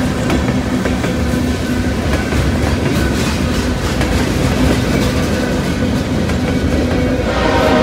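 Freight cars of a CSX train rolling past close by: a steady rumble of wheels on rail with clickety-clack over the joints. A horn starts sounding near the end.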